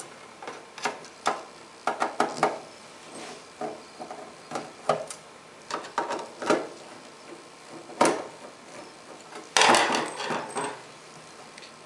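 Screwdriver clicking and scraping on the small screws of a metal cover plate as they are backed out one after another. A louder clatter near the end is screws being dropped into a small cup.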